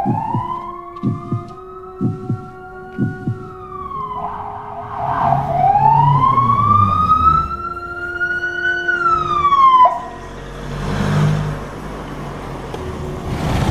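Ambulance siren wailing in two slow sweeps, each climbing in pitch for several seconds and then dropping away, stopping about ten seconds in; the vehicle's engine and tyre noise follow as it drives up. Heavy heartbeat-like thumps, about two a second, sound under the first three seconds.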